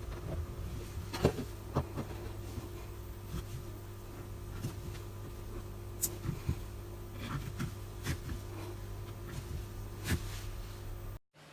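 Slime being squeezed and poked by hand, giving scattered small clicks and pops over a steady electrical hum; the sound cuts off abruptly just before the end.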